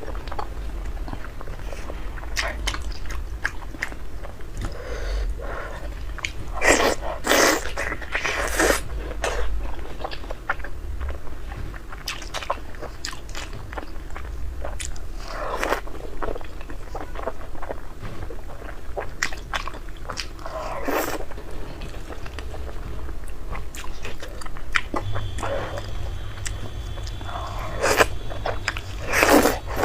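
Close-miked eating: chewing, with sharper bites every few seconds, a few of them louder than the rest.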